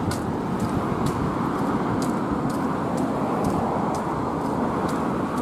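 Steady road traffic on the bridge roadway, cars and a bus driving past, with light footsteps on the pavement about twice a second.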